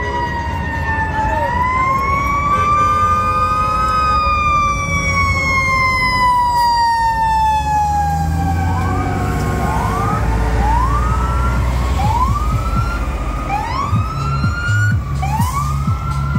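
FDNY fire truck sirens responding. One long wail rises for a few seconds and then slowly winds down, followed from about nine seconds in by a run of short rising whoops about once a second. Under them is the deep rumble of the fire truck's engine as it passes.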